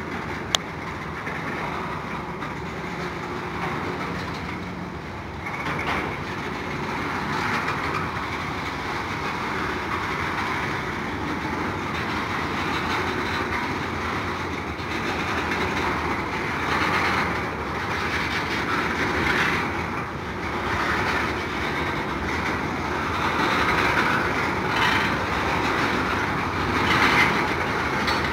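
Freight train tank cars rolling past: continuous wheel-on-rail noise and rattling that grows somewhat louder in the second half. A single sharp click about half a second in.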